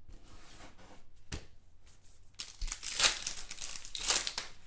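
Shiny foil wrapper of a basketball trading-card pack being torn open and crinkled by hand. Quiet handling with a single click at first, then about two seconds of loud crinkling in the second half.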